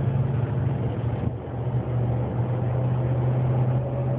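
Engine and road drone inside the cab of a 2009 Dodge Ram 1500 pickup under way, steady apart from a short easing off about a second and a half in. A faint thin whine starts to come in during the second half.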